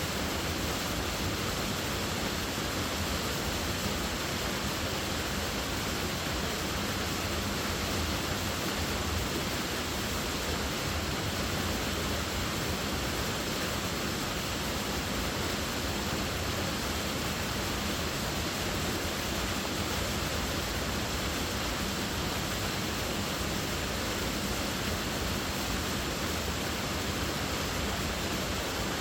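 Waterfall: water falling and splashing in a steady, unbroken rush, the same from start to end with no distinct events.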